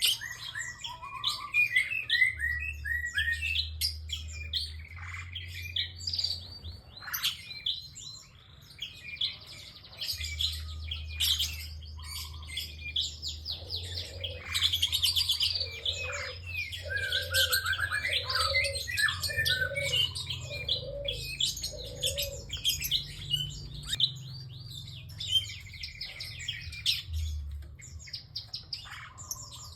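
Prinias (prenjak) calling busily: rapid, sharp high chirps and trills tumbling over one another. Midway a lower note repeats about six times, roughly once a second, and a faint low hum runs underneath.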